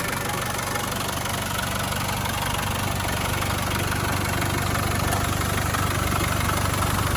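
Land Rover Defender 200Tdi 2.5-litre four-cylinder turbodiesel running steadily at idle, hot after a short drive. It runs smoothly and evenly.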